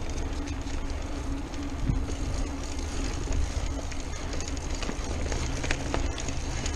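Mountain bike ridden fast down a dirt trail: steady tyre rumble over the ground with scattered clicks and knocks from the bike rattling over bumps, and wind buffeting the chest-mounted camera's microphone.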